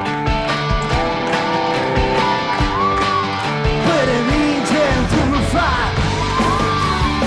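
Live pop-rock band music with drums and electric guitar and a male voice singing.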